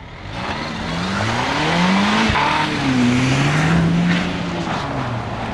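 Volvo V60 T6's 2-litre turbocharged and supercharged four-cylinder engine revving hard, its pitch rising and falling, over a loud rush of tyres spinning and throwing snow as the car slides.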